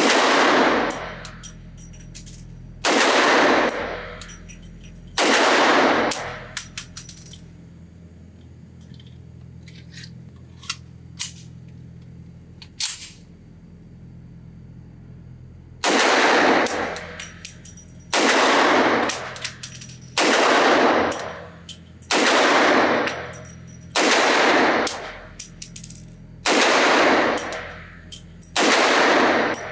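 Coonan Arms Model A semi-automatic pistol firing .357 Magnum rounds, each shot echoing off the concrete walls of an indoor range. Three shots about two seconds apart, a pause of about ten seconds, then seven more at a steady pace of about one every two seconds.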